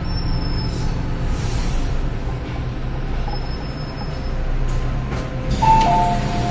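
Hong Kong MTR M-Train electric multiple unit running into a station and stopping: a steady low cabin rumble with a thin high whine twice. About five and a half seconds in, the two-note door chime starts, high note then low note repeating, as the doors open.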